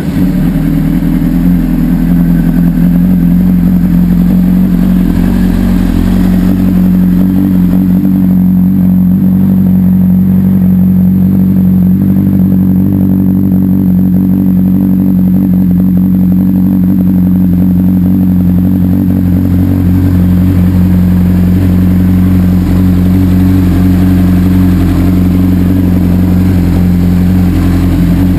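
A 2004 Honda CBR600RR's inline-four engine, with 14,000 miles on it, idling steadily just after starting, through a Devil slip-on exhaust.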